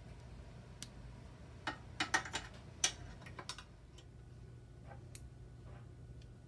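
Light clicks and taps from hands handling parts of a bicycle's rear chain drive, a quick cluster of them in the middle, with a few single clicks before and after, over a steady low hum.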